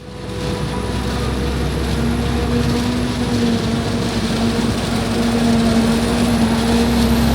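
Claas Jaguar 990 forage harvester running steadily while chopping corn silage. It fades in at the start, then holds a continuous heavy drone with a steady hum, and a high whine that rises a little about six seconds in.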